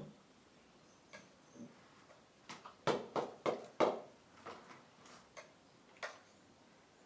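Eating sounds: a run of sharp clicks and taps, scattered at first, then a quick cluster of about six louder ones around three to four seconds in, and a few more after.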